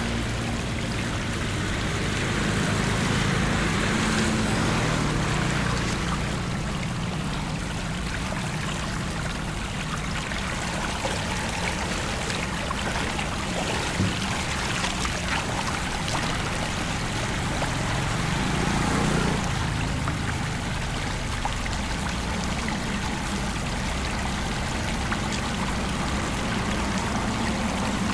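Floodwater streaming and pouring across a flooded road, a steady rush with a few splashes. A low engine hum swells twice, about a few seconds in and again past the middle.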